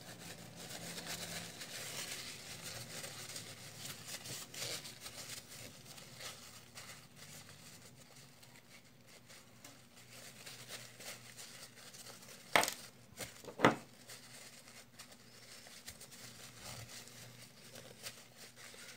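Faint rustling and handling of small metal parts while a baitcasting reel's star drag washers are fitted back onto the shaft, with two sharp clicks about a second apart roughly two-thirds of the way through.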